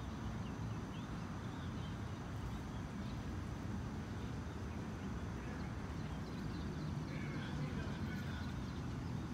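A horse's hoofbeats on grass turf under a steady low rumble, with faint bird chirps here and there.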